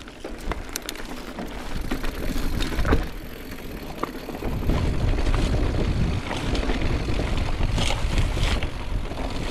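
Wind buffeting the microphone as a rough, low rumble that grows much heavier about halfway through, with a few light clicks and knocks.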